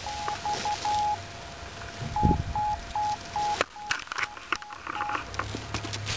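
Morse code tone from a radio receiver picking up the Arduino fox transmitter, beeping in dots and dashes over a steady fainter tone. Leaves rustle about halfway through as the foliage is pushed aside.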